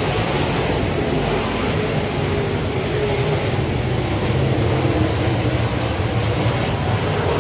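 A pack of dirt-track race cars running at racing speed around the clay oval, their engines blending into one loud, steady din.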